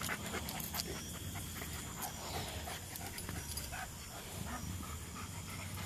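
German Shepherd panting steadily, with many short, light clicks and scuffs throughout.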